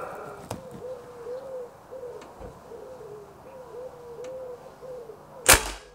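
A single shot from a Kral Arms Empire XS .22 PCP bullpup air rifle about five and a half seconds in: a sharp crack, the loudest sound here. Throughout, a bird calls over and over in short, rising-and-falling notes.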